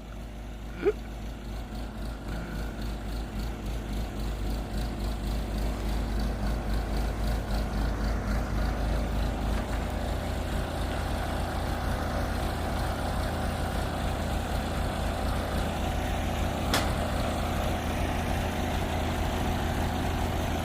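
Backhoe's diesel engine running steadily with an even pulsing rumble, getting louder over the first several seconds and then holding level. Two short sharp clicks, about a second in and near the end.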